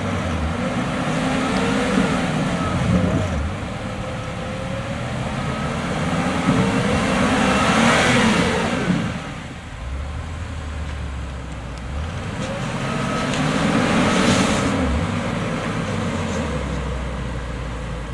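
2013 Range Rover's engine working as the SUV crawls through deep dirt ruts, its revs rising and falling, with two louder surges of revs about eight and fourteen seconds in.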